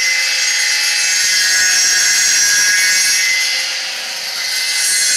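Homemade wood copying machine running: its cutting disc, driven by a 380 V, 1.1 kW electric motor at about 5000–5600 rpm, gives a steady high whine and hiss. The level dips briefly about four seconds in.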